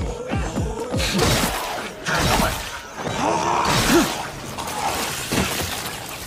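Anime fight sound effects: repeated slashing sweeps and impacts with shattering, crunching noise, over a background music score.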